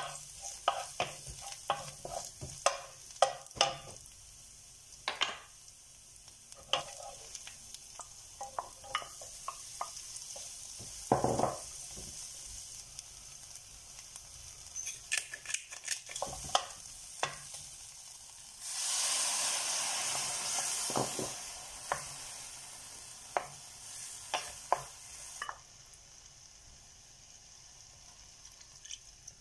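Food frying in oil in a nonstick frying pan, a steady sizzle with a wooden spoon stirring and knocking against the pan in quick clicks. Past the middle a louder hiss runs for several seconds, then the sizzle drops low.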